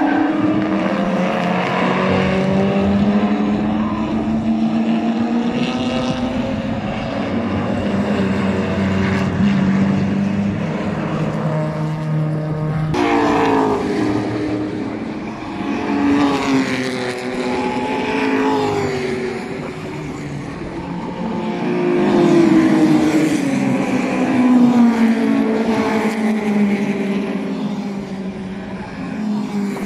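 Racing car engines running hard on a circuit, several cars passing in turn, their engine notes climbing and falling in pitch as they accelerate, shift and go by.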